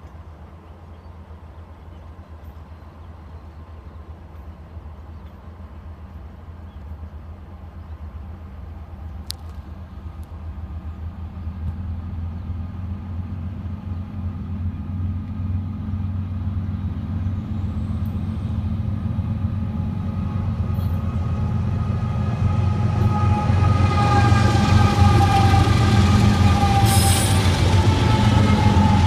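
Lead diesel locomotives of a BNSF intermodal train approaching and passing close by: a low engine rumble grows steadily louder. From about two-thirds of the way in, the locomotive horn sounds a multi-note chord that swells and dips slightly in pitch as the lead unit goes by.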